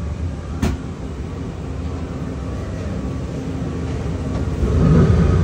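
Open ride car of Radiator Springs Racers rumbling steadily as it rolls along its track, with a single sharp click about two-thirds of a second in. The rumble grows louder near the end.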